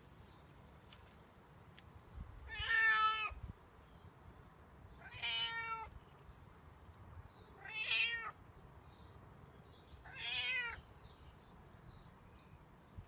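Domestic cat meowing four times, about every two and a half seconds, asking to be fed.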